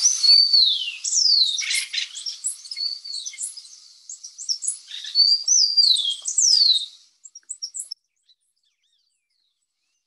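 Acorn woodpeckers calling: loud, harsh, falling calls with short chattering notes between them, in two bouts. They stop about seven seconds in.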